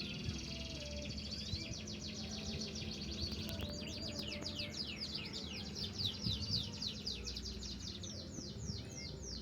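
Domestic canary singing: long, fast trills of repeated sweeping notes, running on with few breaks.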